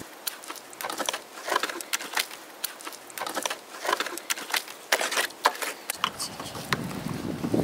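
A trowel stirring thick wet clay mud in a metal tub, making many quick wet squelches and scrapes. About six seconds in, this gives way to a gloved hand smearing wet clay over the dome of a clay oven.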